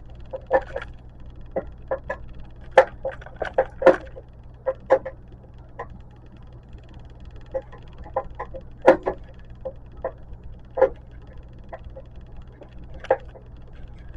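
Irregular clicks and knocks from handling the metal light fixture during its teardown, a dozen or more scattered sharp taps over a steady low hum.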